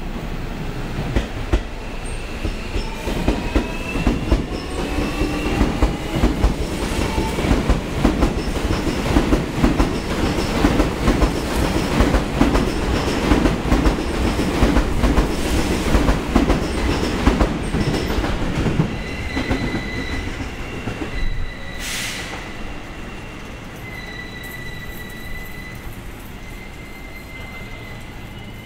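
Seibu 40000 series electric train pulling out and accelerating past. Its motors whine, rising in pitch over the first several seconds, then its wheels clack quickly over the rail joints and the sound fades as the train moves away. A high squeal comes and goes near the end.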